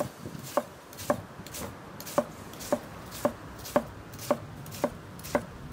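Chef's knife slicing a white onion on a wooden cutting board: steady knocks of the blade on the board, about two a second, each with a short ring.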